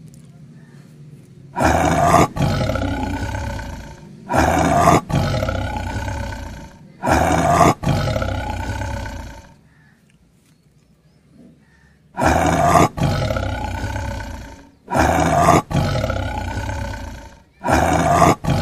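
A big-cat roar sound effect, repeated six times in two runs of three with a short pause between the runs. Each roar lasts about two and a half seconds, swelling again partway through and then fading.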